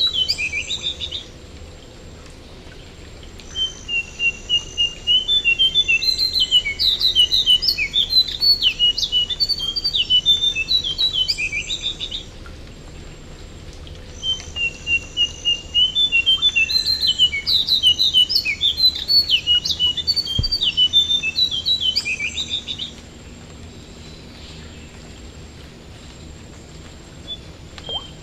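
A jongkangan songbird singing in long, loud bouts, each opening with a run of evenly spaced notes and breaking into rapid, varied chattering. It sings twice in full, with pauses of a few seconds between, and a new bout begins at the very end. A steady faint hiss of rain carries on beneath, heard on its own in the pauses.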